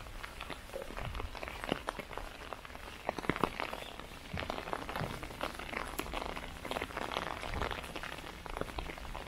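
Footsteps on a walking path in light rain, with irregular small taps of raindrops on an umbrella overhead.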